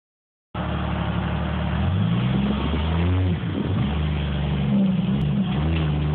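Lifted off-road Jeep's engine revving as it crawls up a steep sandstone ledge, starting about half a second in; the pitch climbs, drops back briefly near the middle, and climbs again with the throttle.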